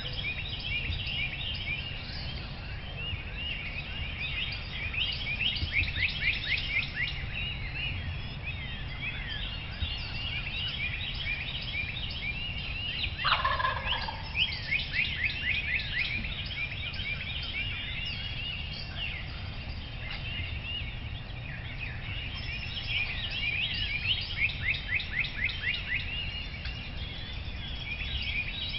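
Wild turkey gobbler gobbling several times against a steady chorus of songbirds chirping. One call about halfway through drops in pitch.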